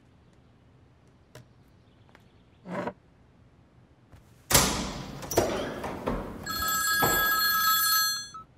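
Mobile phone ringing with an electronic ringtone, a steady chord of high tones for about two seconds near the end. It is preceded about halfway by a sudden loud rushing noise with a couple of knocks.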